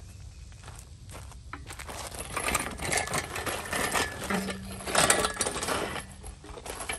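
Engine stand holding a stripped-down Hyundai Veloster engine being pushed and turned around by hand: metal clinking and rattling from about two seconds in, with a low steady tone in the second half.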